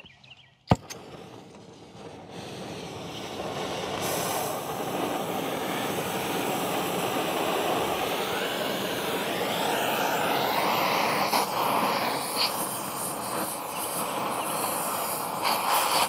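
Oxy-acetylene cutting torch being fired up: a sharp click about a second in, then the torch's steady hiss, which builds over the next few seconds and holds, with a few faint ticks later on.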